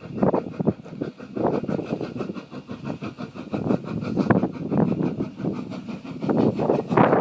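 Steam locomotive No.19 working in under steam, its exhaust beating in a run of short chuffs a few times a second, loudest near the end.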